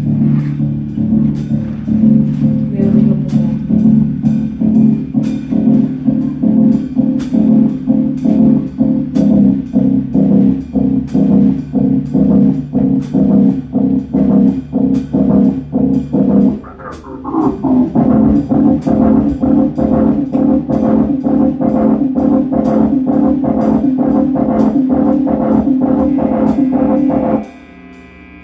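Live rock band playing loud, with electric guitars holding thick sustained chords over a steady drum beat. About two-thirds through the music briefly drops and a pitch slides down before the full band comes back in. Near the end the band cuts off abruptly, leaving only a quieter ringing hum from the amps.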